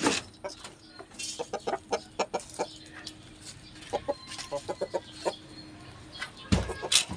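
Hens clucking in short, repeated calls, with a loud knock about six and a half seconds in.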